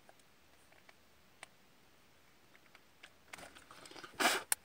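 Quiet hand-handling of small car stereo wires: a few faint clicks, then light rustling from about three seconds in, and a short, louder rushing noise just before the end.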